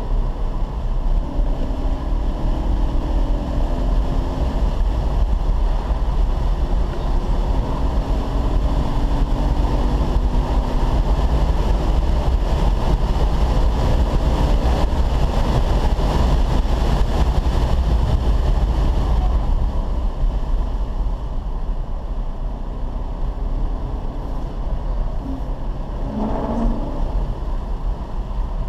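Car engine with road and wind noise heard from inside the cabin at track speed. The engine note climbs in pitch several times in the first stretch, the sound is loudest around the middle, and it eases off about two-thirds of the way through.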